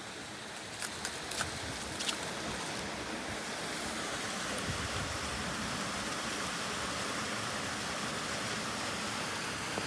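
Steady rushing outdoor noise, slowly growing a little louder, with a few sharp clicks in the first two seconds.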